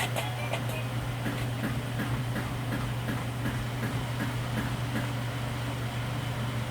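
Steady low mechanical hum with faint, evenly spaced ticks over it.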